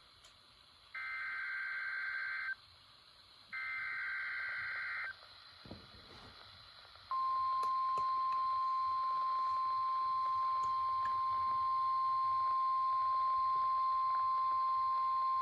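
Emergency Alert System SAME header: two short bursts of digital data tones about a second apart, then a single steady alert tone of about 1 kHz (the 1050 Hz weather radio warning alarm) from about seven seconds in, announcing a severe thunderstorm warning.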